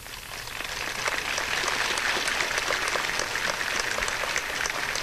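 Audience applause, many hands clapping at once. It builds over about the first second, then holds steady.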